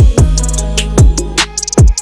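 Background music with a heavy beat: deep kick drum strikes about every 0.4 s over a sustained low bass, with cymbal ticks on top.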